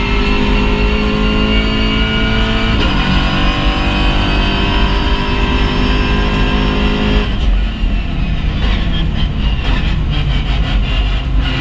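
VW Golf GTI TCR race car's turbocharged four-cylinder engine, heard from inside the cockpit, pulling up through the revs with an upshift about three seconds in, then climbing again. About seven seconds in the driver lifts off and a run of sharp cracks follows while slowing, before the engine picks up again near the end.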